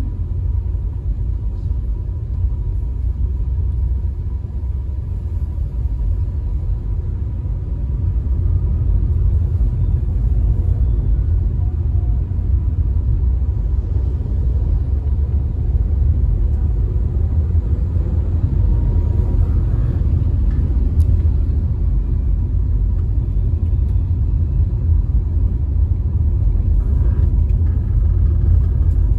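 Steady low rumble of a moving car's road and engine noise heard from inside the cabin, growing a little louder about eight seconds in.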